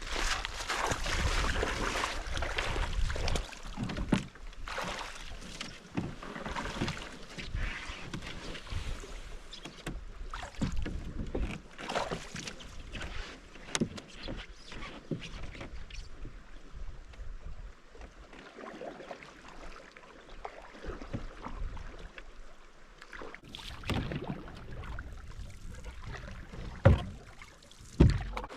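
Canoe being paddled: water splashing with the strokes and irregular knocks of the paddle against the hull, with one sharp knock near the end.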